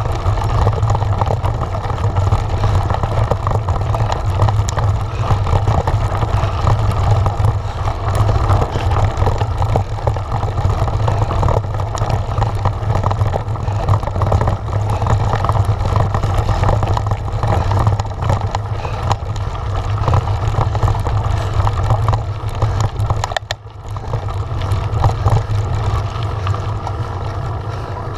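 Wind buffeting the microphone of a bike-mounted action camera, mixed with the rattle and crunch of a Giant Trance mountain bike's knobbly tyres over a loose, stony track. The noise is loud and continuous, dropping briefly about 23 seconds in.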